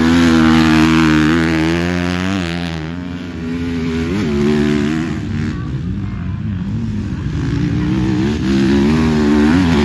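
Motocross bike engines running on the track, revving up and falling back as the riders work through the course; loudest near the start, dropping away about three seconds in, then building again near the end.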